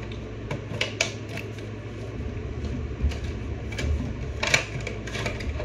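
Action-figure packaging being pulled apart by hand: cardboard box and plastic tray giving scattered crinkles and clicks, the sharpest about four and a half seconds in, over a steady low hum.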